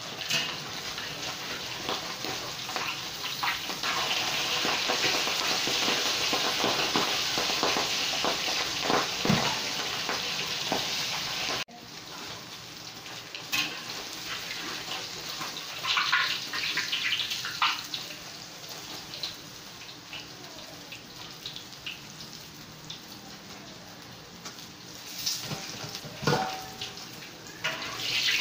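Whole catfish deep-frying in hot oil in a wok: a steady popping sizzle that grows louder about four seconds in and cuts off suddenly about twelve seconds in. After that comes a quieter hiss with a few scattered knocks.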